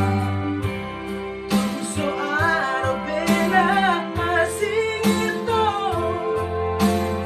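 Yamaha electronic keyboard playing sustained chords over a steady beat, with a man singing a melody over it from about a second and a half in.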